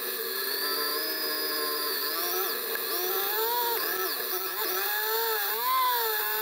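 Motorcycle engine running under way, its pitch rising and falling with the throttle and gear changes, with a sharp drop about two and a half seconds in.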